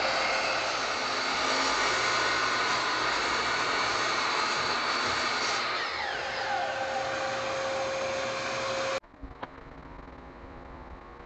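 Miter saw motor running with a steady whine, its pitch falling about six seconds in as the blade spins down. The sound cuts off suddenly about nine seconds in, leaving faint clicks from handling a table saw blade.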